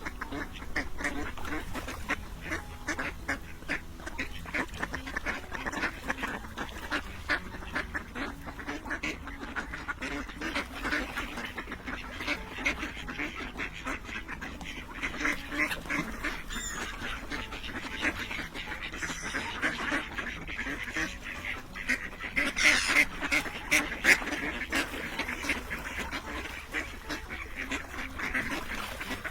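A flock of ducks quacking continuously, many calls overlapping, with a louder stretch about three-quarters of the way through.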